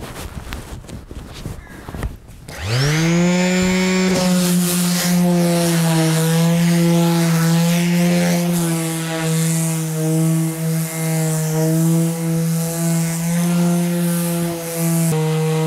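Makita electric orbital sheet sander with 100-grit paper, after a few light knocks, switched on about two and a half seconds in and whining up to speed, then running steadily as it is worked over bare solid wood, its pitch wavering slightly with the pressure.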